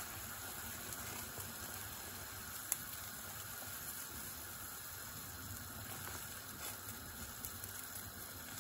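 Water at a rolling boil in a large stainless-steel pot, a steady bubbling hiss, with one short sharp tick about two and a half seconds in.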